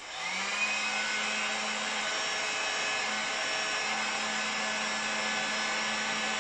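Electric heat gun switched on with a click, its fan spinning up over the first half second and then blowing steadily with a low hum.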